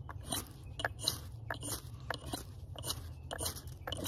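Ferrocerium rod scraped hard and fast along the blade edge of a Nedfoss 15-inch camp hatchet, a rasping scrape repeated about twice a second to throw sparks.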